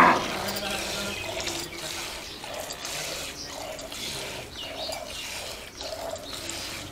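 Milk squirting from a cow's teats into a steel bucket under hand milking, in short rhythmic streams about two a second.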